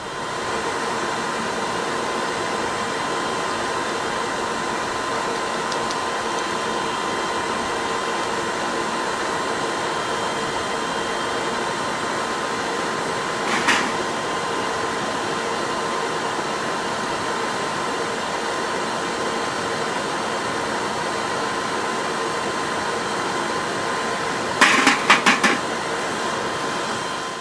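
Steady whoosh of an electric air blower running with a motor hum, as used to fan an aluminium-melting furnace. There is a single metallic knock about halfway through and a quick rattle of knocks near the end.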